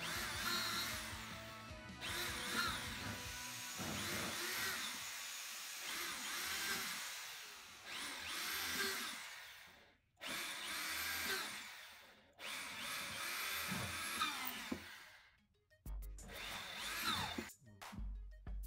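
Corded electric drill boring holes into a wooden chair frame in a series of short bursts, its pitch rising and falling with each trigger pull, with brief pauses between holes.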